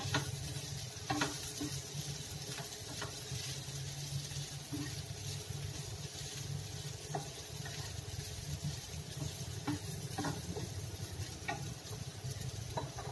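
Wooden spatula stirring and scraping diced boiled plantain in a nonstick frying pan, with scattered light taps against the pan, over a soft steady sizzle as the mixture is sautéed dry.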